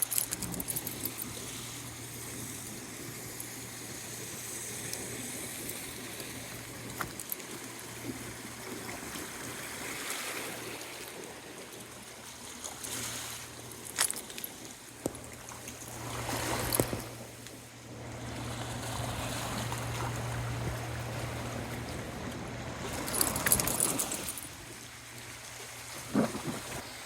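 Gusts of wind buffeting the microphone, coming in several rushes and loudest near the end, over a steady low hum.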